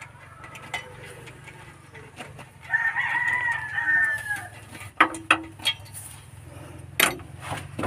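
A rooster crows once, a single drawn-out call of nearly two seconds that dips at the end, a few seconds in. Sharp metallic clicks and taps from engine parts being handled follow.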